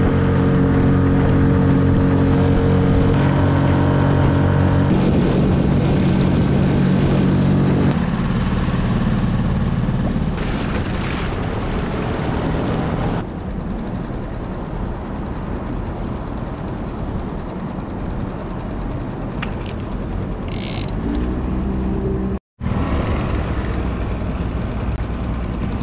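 Small outboard motor of a one-person skiff running steadily under way, with wind and water noise. The sound changes abruptly a few times and drops out briefly near the end.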